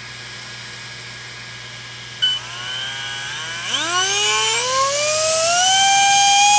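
Traxxas Slash 4x4 RC truck's brushless motor and drivetrain spinning up on the bench with its wheels in the air: a click about two seconds in, then a whine that rises steadily in pitch and holds high near the end, at half throttle.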